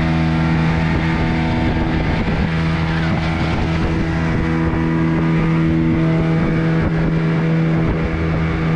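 Fishing boat's engine running at a steady cruising speed, a constant drone that holds the same pitch throughout, with a continuous rush of noise beneath it.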